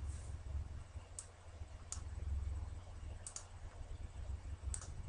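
A few scattered clicks of a computer mouse, about five spread over several seconds with two close together in the middle, over a faint low steady hum.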